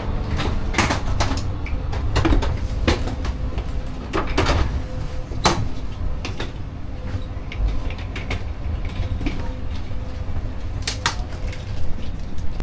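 Steady low rumble of a high-speed train heard from inside, with a dozen or so irregular sharp clicks and knocks scattered through it.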